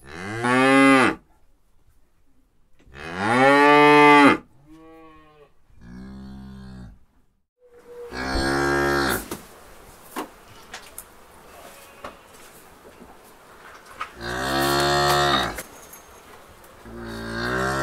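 Cattle mooing: about six long, pitched moos, each lasting a second or so, with short pauses between them.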